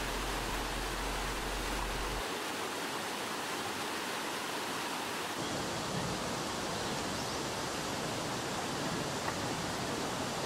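Steady rush of a rocky mountain stream, water running over stones and small cascades. The tone shifts slightly about two seconds in and again about halfway through.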